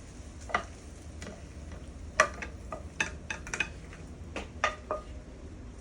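Kitchen utensils and dishware knocking and clinking: about a dozen sharp, separate taps, bunched in the middle, the loudest about two seconds in.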